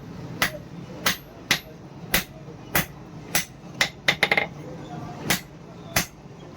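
Blacksmith's hammer striking steel on an anvil in a steady rhythm, a little under two blows a second, each with a short metallic ring. About four seconds in there is a quick run of lighter taps.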